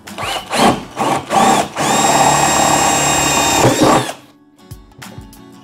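A 12V INGCO cordless drill boring holes through a plastic bucket lid. It gives two short bursts with the motor spinning up, then runs steadily for about two seconds and stops about four seconds in.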